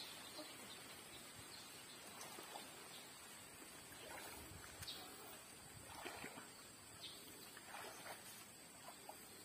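Near silence: faint outdoor background with a few soft, brief sounds scattered through.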